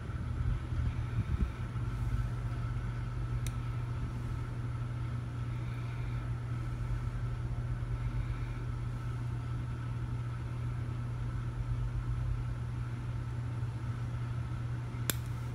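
Steady low mechanical hum with a faint steady whine above it, like a motor or engine idling, with a faint tick early and a sharp click shortly before the end.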